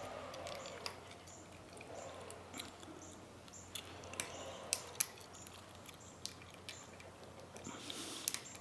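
Faint scattered clicks and light handling noise from a Medeco-cored padlock being handled, with a sharper click about five seconds in.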